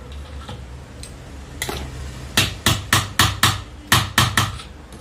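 A hammer beating on a metal tube slipped over a ceiling fan motor's shaft, driving the new bearing home. There is one light tap, then about eight sharp metallic blows in quick succession about halfway through.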